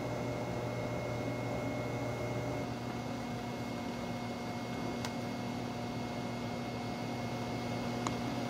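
Room tone: a steady mechanical hum and hiss with a few faint held tones, broken only by two faint ticks about five and eight seconds in.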